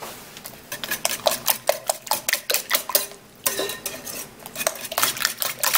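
Wire balloon whisk beating an egg-and-cream custard in a mixing bowl, its wires clicking quickly against the bowl's sides, with a short pause about halfway through.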